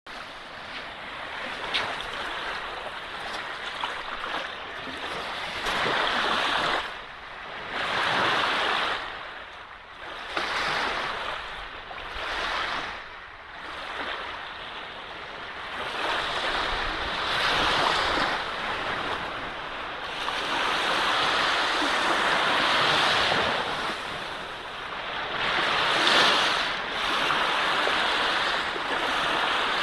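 Sea waves breaking and washing on a beach, the surf swelling and falling back every few seconds.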